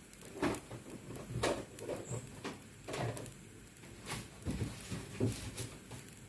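Irregular knocks and clunks of cookware being handled, about eight in six seconds.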